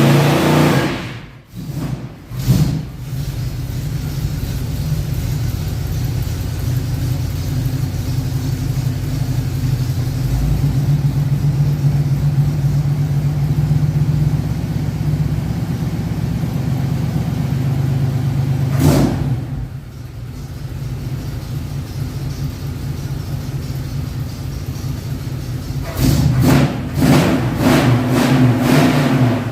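A car engine running steadily with some revving, in several cut-together segments that break off abruptly near the start, about two-thirds of the way through, and several times near the end.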